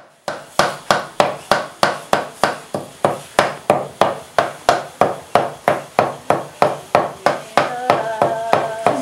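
Knife chopping on a wooden cutting board: steady, even strokes, about three a second.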